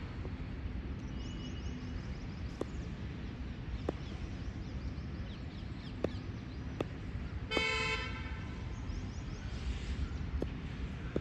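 A single short vehicle horn toot, about half a second long, a little past the middle, over steady low background noise with a few faint ticks.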